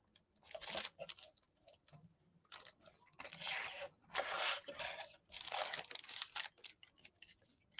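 Faint, irregular rustling and scratching of paper being handled and brushed with decoupage medium, a paintbrush working along the paper's edges on a wooden cutout.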